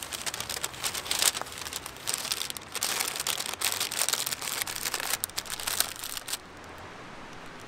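Brown paper wrapping a hot sandwich, crinkling and rustling as hands fold and press it. The crinkling stops about six seconds in, leaving a faint steady hiss.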